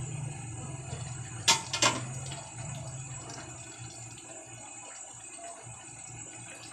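A stainless-steel pot lid clanks twice as it is lifted off about one and a half seconds in, over the steady hiss and gentle bubbling of fish simmering in coconut milk.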